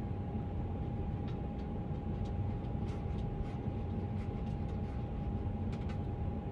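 Steady low background rumble with a faint steady hum tone over it, and a few faint light clicks of fingers tapping on cards laid out on a table.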